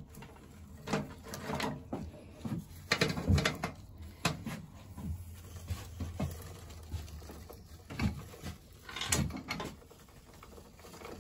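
Motorcycle O-ring drive chain clinking and rattling irregularly, links knocking together as the new chain is pulled through around the front sprocket by hand.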